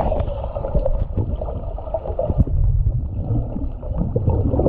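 Muffled water sloshing and gurgling right at the microphone, heavy in the low end with scattered small knocks, as when water moves around a camera in a pool.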